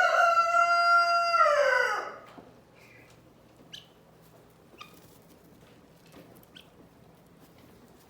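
Rooster crowing, a long held note that falls away and ends about two seconds in. After it come a few short, faint chicken calls, spaced out.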